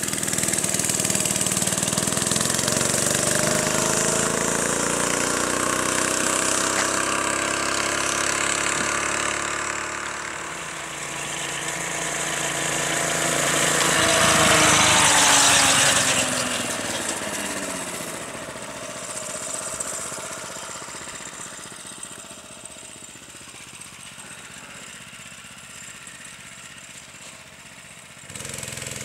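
Small single-cylinder four-stroke minibike engine running as the bike is ridden, its pitch rising and falling with the throttle. It grows loudest about halfway through as the bike passes close, then drops in pitch and fades as it moves off into the distance.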